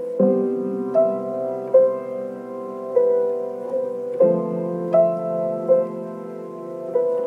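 Background music: a slow piano melody, a new note struck about once a second over sustained lower chords.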